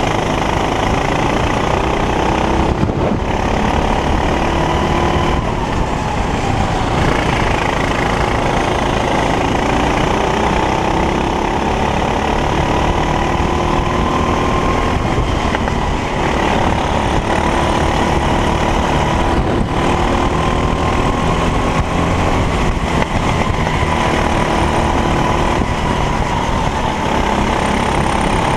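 Racing kart engine heard onboard, revving hard. Its pitch climbs steadily for several seconds at a time, then drops sharply before climbing again as the kart laps the circuit.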